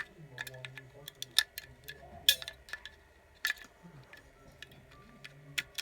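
1.5-volt batteries clicking and rattling against plastic as they are handled and pushed into the stand's battery holder, in a series of sharp clicks about a second apart.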